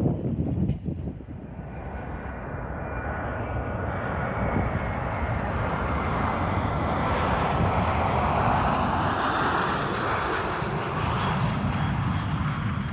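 Airplane engines growing steadily louder over several seconds, with a faint steady whine over the rush of noise. The sound is loudest in the second half and eases a little near the end.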